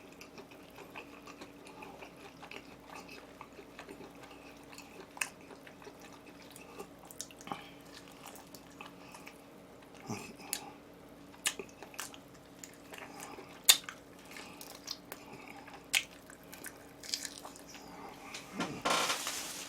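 Close-up chewing and biting: soft wet mouth sounds and scattered small clicks, over a faint steady hum.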